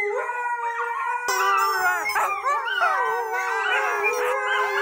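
Siberian huskies howling together: long, drawn-out howls that waver up and down in pitch, several voices overlapping.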